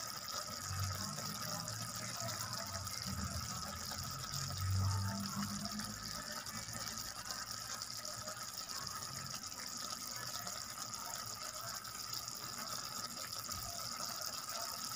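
Shrimp cooking in oyster sauce in a pan, the sauce simmering with a steady bubbling sizzle as the dish is almost done. A dull low rumble swells briefly about five seconds in.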